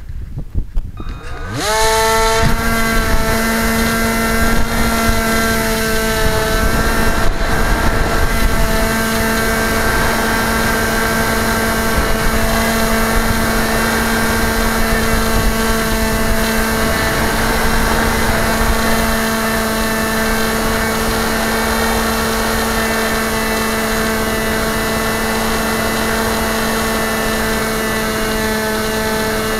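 Electric motor and propeller of a radio-controlled model aircraft spinning up sharply about a second and a half in, then running at a steady high whine over a rushing hiss, with a few brief dips in pitch around six seconds in.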